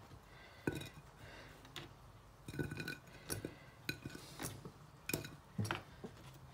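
Irregular light knocks and clinks of kitchen prep: raw potato pieces set down on a ceramic plate, and a knife and spoon tapping against the plate and a plastic chopping board.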